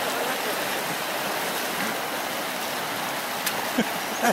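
Shallow mountain river rushing steadily over rocks as men wade through it, with a couple of short knocks near the end.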